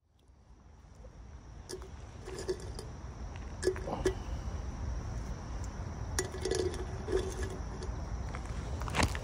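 Background ambience fading in from silence: a low rumble and a steady hiss with a faint high tone, broken by scattered light clinks and knocks, the sharpest about four and nine seconds in.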